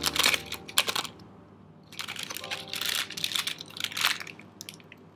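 Clear plastic bag crinkling and crackling as a squishy toy donut is handled inside it, in two spells with a short lull between them about a second in.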